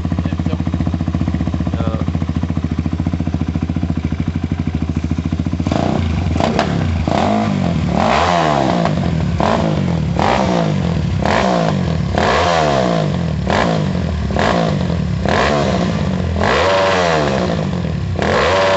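Suzuki Raider 150 carb-type single-cylinder four-stroke, built up to 220cc with a stroker crankshaft and a DBS exhaust, idling steadily. From about six seconds in the throttle is blipped again and again, the revs rising and falling about a dozen times.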